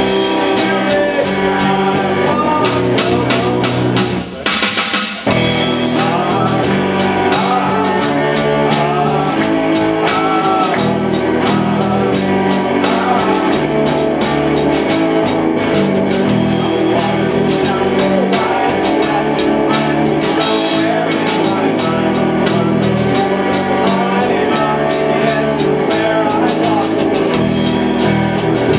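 Live rock band playing on electric guitars over a steady beat, with a singer; the band drops out briefly about four seconds in, then comes back in.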